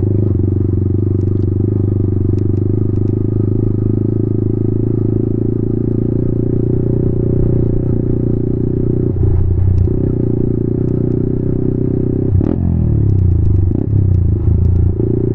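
Yamaha MT-15 motorcycle's single-cylinder engine running steadily at low speed, heard from the rider's seat. The engine note shifts briefly near nine seconds in and again for a couple of seconds after a sharp click about twelve and a half seconds in.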